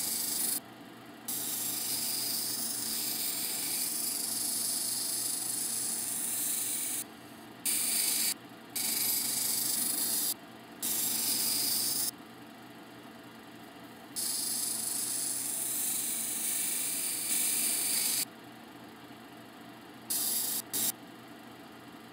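Tiger eye cabochon on a dop stick being ground on a wet, solid 220-grit diamond wheel of a cabbing machine: a hissing grind that comes and goes several times as the stone is rocked against the wheel, over the steady hum of the machine's motor.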